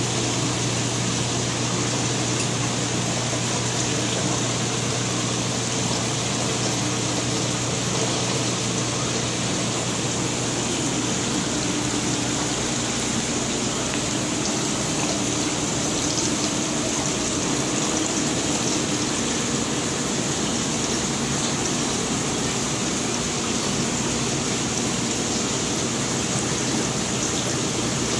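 Steady hiss and rush of water circulating through saltwater aquarium holding tanks, with a steady low hum underneath.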